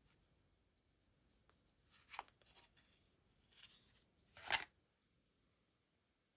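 Protective plastic film being peeled off an Apple Watch Series 8: two short rips, about two seconds and four and a half seconds in, the second louder, with fainter rustling between.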